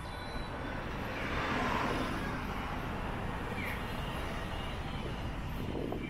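Street traffic: a steady rumble of passing vehicles, with one vehicle going by close and loudest between about one and a half and two seconds in.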